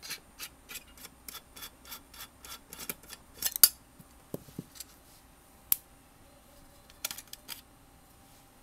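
Screwdriver backing a small screw out of the sheet-metal shield of an LCD monitor's electronics: a run of evenly spaced light clicks, about four a second, for the first three seconds, then a couple of louder clacks and a few scattered metal clicks.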